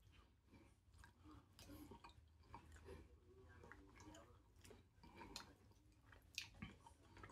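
Faint chewing of soft steamed fish, with small wet mouth clicks scattered through, one sharper click about six and a half seconds in.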